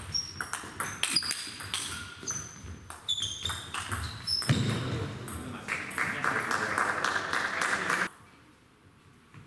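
Table tennis rally: the ball clicking off the bats and the table, with short high squeaks of shoes on the hall floor. About halfway through, the rally ends and a small crowd applauds for several seconds.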